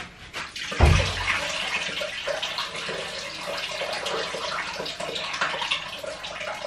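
Kitchen tap water running steadily into the sink, starting with a low thump about a second in.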